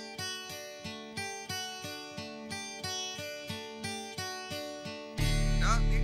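Background music: an acoustic guitar picking a repeating pattern of notes, about two and a half a second. About five seconds in, a much louder, steady low hum cuts in, with a wavering higher sound over it.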